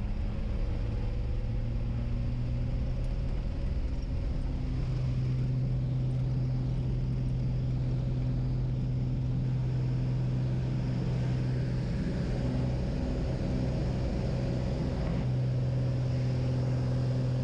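The single piston engine of a high-wing light aircraft, heard from inside the cabin. It drones steadily at high power through the takeoff run on a grass strip and the climb-out. Its pitch steps up about five seconds in and again near the end.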